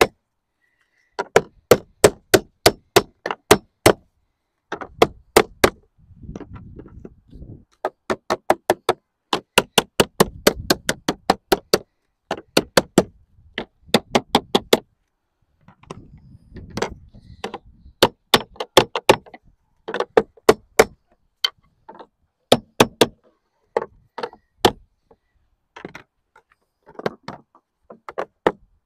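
Sheet lead being dressed with a plastic lead dresser: runs of sharp, even knocks at about three to four strikes a second, broken by short pauses and brief low scuffing sounds.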